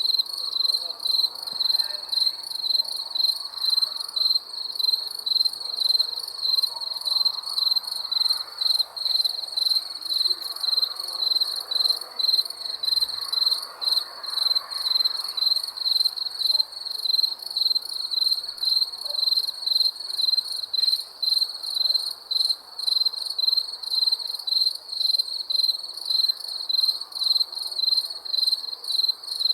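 Crickets chirping in a steady, even rhythm of rapid, high-pitched pulses that never stops.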